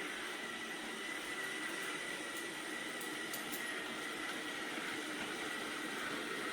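Roborock S8 robot vacuum and mop running steadily, its suction fan giving a constant whirr with a thin steady whine, and a few faint clicks.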